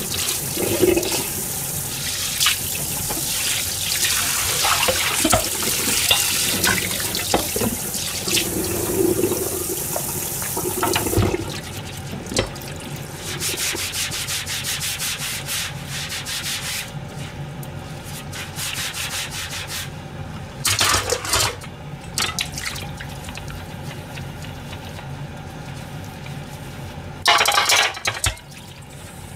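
Kitchen tap running into a stainless steel sink while a plastic cutting board is scrubbed with a sponge under the stream. About eleven seconds in the water stops suddenly, leaving the rub of the sponge and small knocks of the board and bowls, with two short bursts of water later on.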